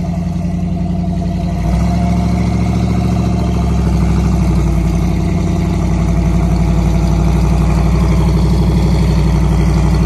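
Off-road wrecker truck's engine running under load as it climbs a rock ledge, its level stepping up about two seconds in and growing again over the following seconds.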